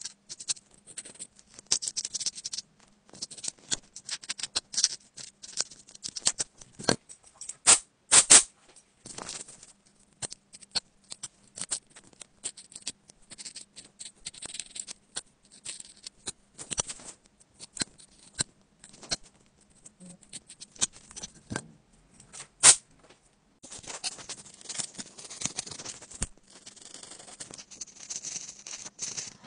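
Close-up scraping and clicking of a fine metal pick working packed grime out of a phone's silent-switch slot, with a few sharp clicks of the tip against the metal frame. About three-quarters of the way through, a stiff brush starts sweeping over the frame with a steady rustle.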